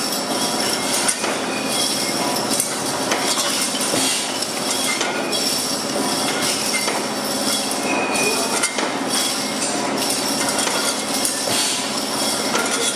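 Bertolaso bottling line running: the crown capping machine crimping caps onto brown glass beer bottles, with steady machine clatter, glass bottles clinking and occasional sharp clicks.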